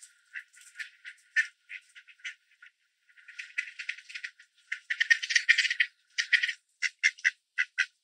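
Mallard ducks quacking in quick runs of short calls, busiest around the middle. The quacking is loud and comes from drakes chasing other ducks away from scattered bird seed while they feed.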